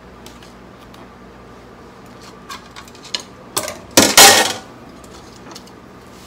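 A few light clicks and knocks of kitchen items being handled on a countertop. About four seconds in comes a loud, brief brushing rustle right at the microphone as a hand passes over the recording phone.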